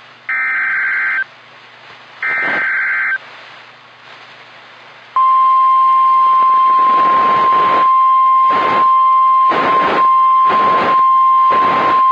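NOAA Weather Radio emergency alert over a radio receiver: two roughly one-second bursts of warbling SAME digital header data near the start, then about five seconds in the single steady warning alarm tone that announces a tornado warning. Surges of static noise rise over the tone about once a second.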